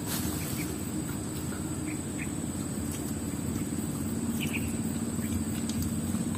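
Outdoor ambience: a steady high insect drone over a low rumble, with a few short faint bird chirps.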